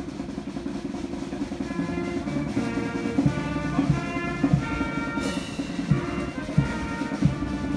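Band music: a steady low drone under a melody, with a drum beat about every two-thirds of a second from about three seconds in.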